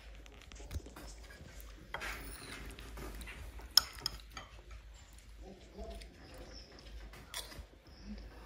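Metal spoon scraping and clinking against a ceramic bowl of oatmeal as it is eaten, with one sharp clink a little before the middle.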